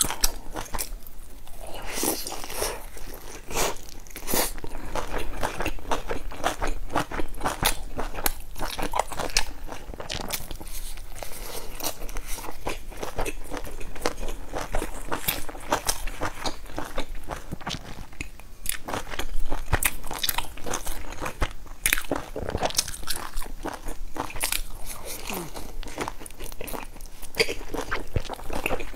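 Close-miked biting and chewing of soft dumplings dipped in chili sauce: a dense run of wet mouth clicks and smacks.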